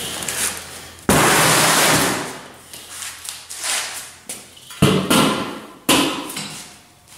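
Handling clatter of a Weber kettle grill bowl with three tack-welded metal tube legs as it is flipped over and stood upright. A loud noisy rush lasting about a second comes a second in, then sharp knocks near five and six seconds as the legs touch down on the floor.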